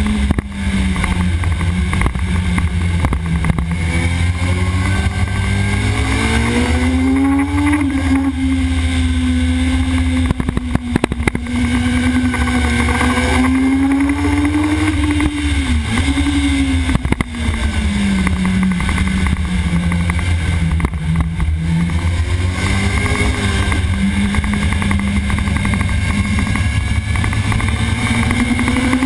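Sport motorcycle engine at racing speed on track, heard from an onboard camera on the bike. The engine note climbs and falls with throttle and gear changes, dips sharply and recovers about halfway through, all over a heavy, steady low rumble from wind and the mount.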